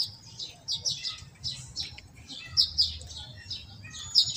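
Small birds chirping, with short high chirps several times a second, over a faint low rumble.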